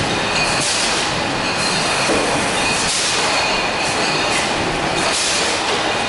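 Production-line machinery in a sparkling-wine factory hall, conveyors running with a loud, steady clattering din. A high hiss swells and fades about once a second over faint steady high whines.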